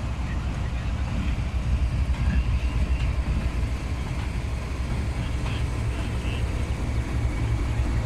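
Pakistan Railways GRU-20 diesel locomotive running and moving slowly as it hauls a dead locomotive, a steady low engine rumble.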